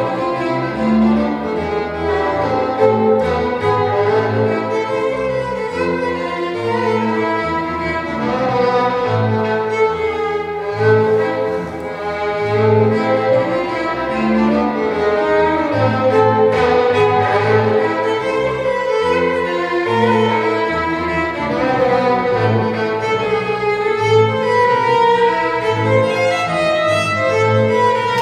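Violin and bowed double bass playing a fiddle tune as a duet, the violin carrying the melody over a line of short, repeated bass notes.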